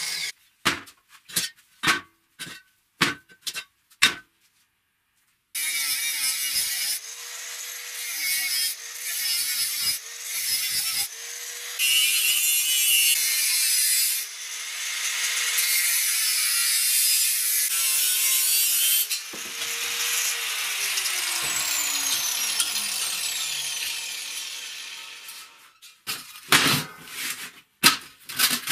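Electric power tool cutting into metal pipe, its motor note dipping repeatedly under load through a loud hiss. Near the end it is released and winds down over a few seconds. A few sharp metal knocks come at the start, and clanks come at the very end.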